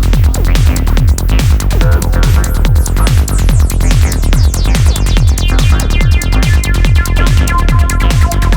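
Electronic trance background music with a steady four-on-the-floor kick drum and synth melody.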